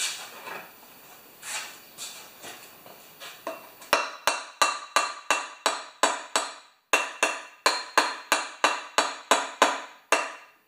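Hammer tapping a metal tool held on top of a Tecumseh lawnmower engine: a few softer knocks, then from about four seconds in a steady run of sharp metal taps, about three a second, each with a short ring.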